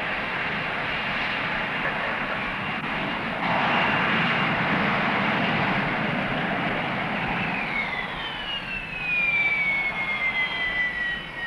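Harrier jump jet's Rolls-Royce Pegasus vectored-thrust turbofan: a steady jet roar, louder from about three and a half seconds in, then from about eight seconds a high whine sliding down in pitch as the engine is throttled back with the aircraft on the runway.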